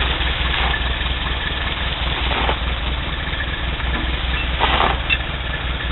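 A vehicle engine running steadily at low revs with a pulsing low throb, taking up the pull on tow chains, with a few short rasping sounds over it.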